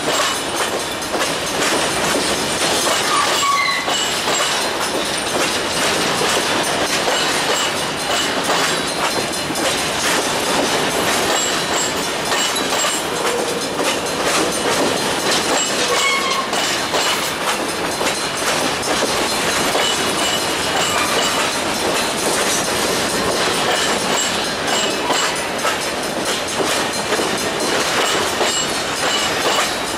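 Freight train of covered hopper cars rolling past: a steady rumble and clatter of steel wheels on the rails, with a brief faint squeal now and then.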